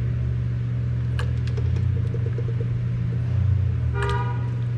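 A car passing or pulling in with a low rumble, then a short single car horn toot about four seconds in.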